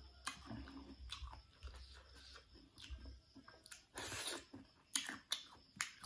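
Chewing and a crunchy bite into a slice of unripe green mango, the bite about four seconds in being the loudest sound, followed by a few sharp crunching clicks.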